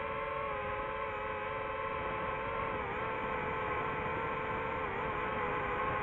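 DJI quadcopter's electric motors and propellers whining steadily in flight, heard from the camera mounted on the drone, the pitch dipping briefly about three seconds in and again about five seconds in as the throttle eases.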